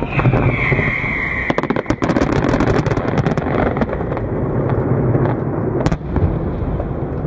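Fireworks display: a continuous rumble of bursting shells, with a whistle that drops slightly in pitch in the first second and a half, a quick run of sharp crackles about one and a half seconds in, and a single sharp bang about six seconds in.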